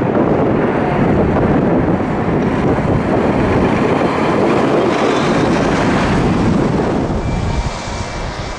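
Jet engines of a departing Airbus A330-300, a steady deep roar that fades off about seven seconds in.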